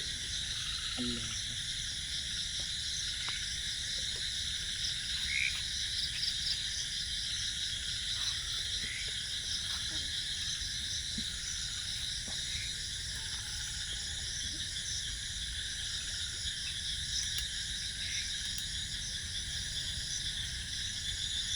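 Chorus of crickets and other insects with frogs calling: steady, shrill trilling in several layers, with a few short chirps here and there.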